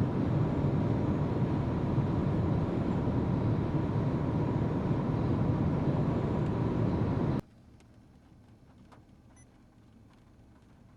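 Steady road and engine noise inside a moving car. It cuts off suddenly about seven seconds in, leaving near quiet with a few faint ticks.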